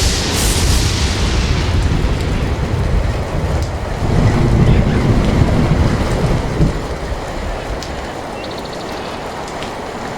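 Heavy rain with thunder: a sharp thunderclap at the start that fades over about two seconds, then a low rolling rumble about four to six seconds in.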